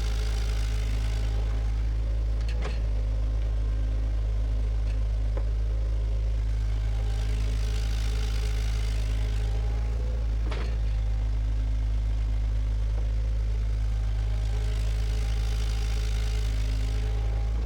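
Bulldozer's diesel engine running steadily at an even pitch, with a sharp knock twice.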